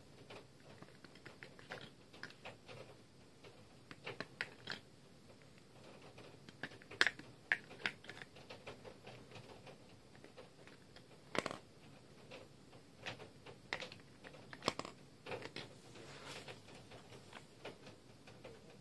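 Scattered small plastic clicks and taps, irregular and fairly faint, from handling a 2005 Furby as batteries are fitted into its battery compartment.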